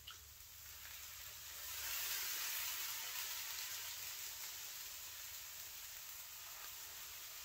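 Hot melted beeswax and water running and dripping from a squeezed strainer bag back into a pan of hot wax, making a sizzling hiss. The hiss swells about two seconds in, then slowly eases off.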